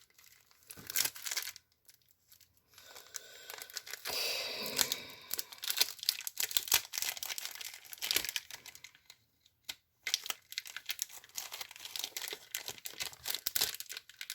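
Foil Pokémon booster pack wrapper crinkling and tearing as it is opened by hand: many quick crackles, with a longer tear about four seconds in.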